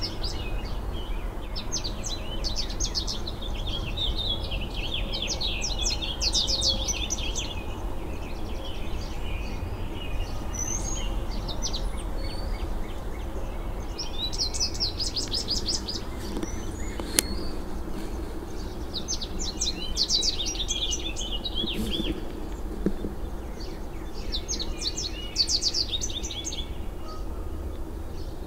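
Small songbird singing outdoors: short bursts of rapid, high repeated notes every few seconds over a steady low background rumble. There is one sharp click about seventeen seconds in.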